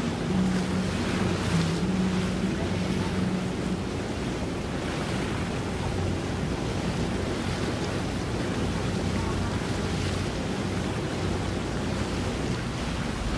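Wind buffeting the microphone over the wash of open water, with a low steady hum under it for the first few seconds.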